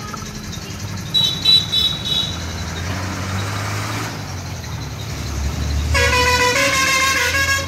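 Compressed-air spray gun hissing as clear finish is sprayed onto carved wood, under a low engine rumble from a vehicle. Short high beeps come about a second in, and a long steady vehicle horn blast sounds from about six seconds in to the end, the loudest sound here.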